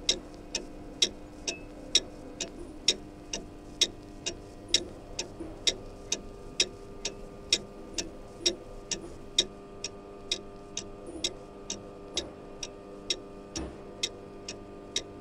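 Clock ticking steadily at about two ticks a second, over a steady low hum.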